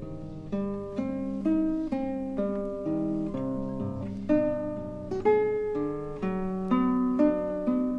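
Background music: solo acoustic guitar playing a melody of plucked notes, about two to three a second, each ringing and fading.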